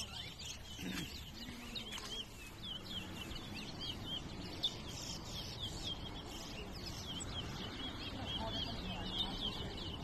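Towa-towa (chestnut-bellied seed finch) singing in a cage: a quick, unbroken run of short, high chirping notes repeated over and over, over a low steady background noise.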